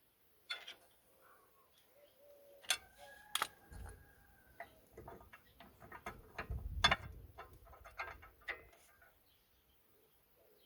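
Irregular clicks, knocks and metallic clinks of tools and brake parts being handled while front brake pads and caliper are fitted back together. A thin squeak-like tone sounds for about two seconds near the start, and the knocks are heaviest about a third and two thirds of the way through.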